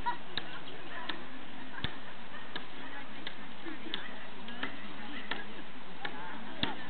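Evenly spaced chopping blows at the base of a wooden maypole, about one every 0.7 seconds, with a few heavier strikes. Crowd chatter runs faintly behind.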